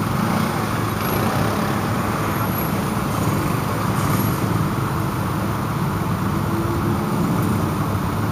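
Steady road traffic noise, a continuous low rumble of vehicles.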